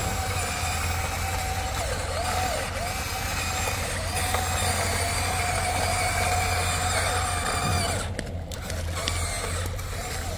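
Huina RC excavator running: a steady low hum with electric motor whine that rises and falls in pitch as the arm and bucket move. The sound drops out briefly about eight seconds in.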